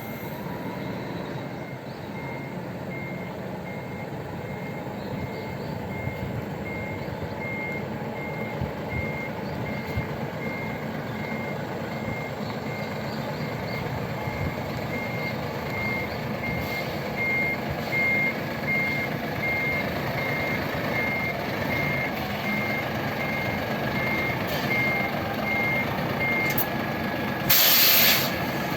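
A sightseeing bus reversing: its back-up alarm beeps steadily about once a second over the diesel engine's running, then stops. Near the end comes a short, loud hiss of air brakes.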